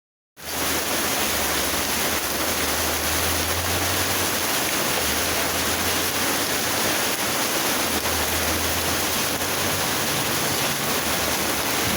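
Heavy rain mixed with hail pouring down in a dense, steady roar, with a low hum coming and going underneath.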